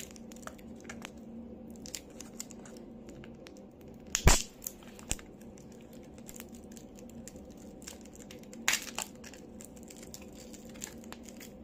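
Clear plastic blister pack of a microSD card being bent and pried open by fingers, with no tool: light crinkling and scattered small clicks. About four seconds in the stiff plastic gives a sharp loud crack, and a few smaller cracks follow later.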